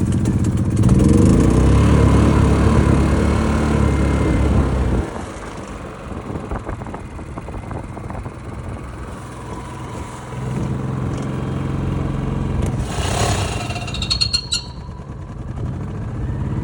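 Predator Super Quiet portable generator's engine running loudly with a steady pitch, then dropping to a lower, quieter speed about five seconds in and picking up again around ten seconds in. A brief patch of clicks and hiss comes shortly after that.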